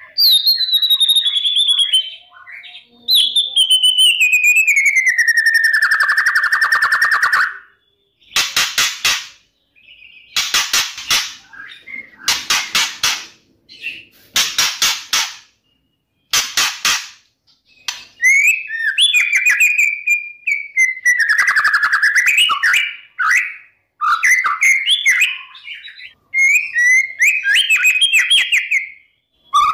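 White-rumped shama (murai batu) singing intensely. Long falling whistles come first, then a run of short harsh rattling bursts about two seconds apart, then quick varied warbled phrases. This is the insistent song used as a provocation recording to set rival shamas singing.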